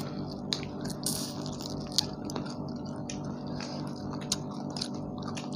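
Scattered small clicks and smacks of people eating, over a steady low hum, with a brief rustle about a second in.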